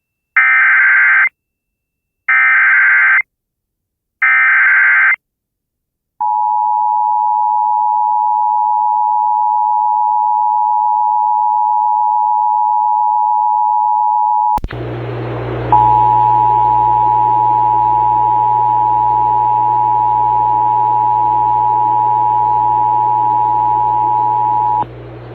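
Emergency Alert System tones from a Sage EAS Endec. First come three short bursts of SAME header data tones about a second apart, then the steady two-tone attention signal for about eight seconds. About halfway through, hiss and a low hum cut in, and the two-tone attention signal sounds again for about nine seconds.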